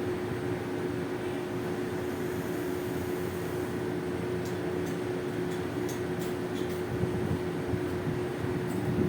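A machine running steadily with a constant hum and a few faint clicks around the middle.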